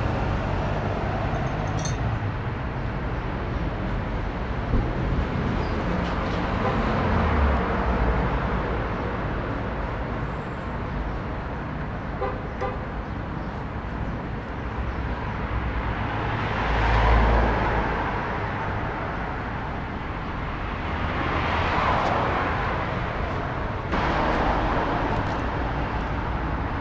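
Street traffic going by steadily, with two vehicles swelling past about two-thirds of the way through, and a few faint clicks.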